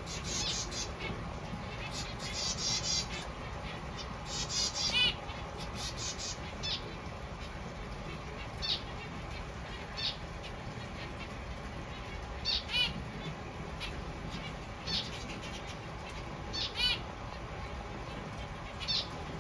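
Zebra finches calling: short, high, nasal beeping calls, several close together in the first five seconds, then single calls or pairs every couple of seconds, over a steady low hum.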